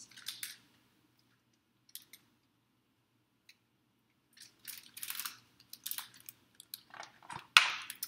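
Paper rustling and crinkling as the pages of a large picture book are handled and turned. It comes in a run of short scratchy bursts from about halfway through, and the loudest comes just before the end.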